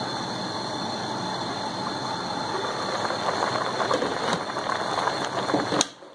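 Spinach and potato pieces at a hard boil in a large pot on a gas stove: a steady, dense bubbling that cuts off abruptly near the end.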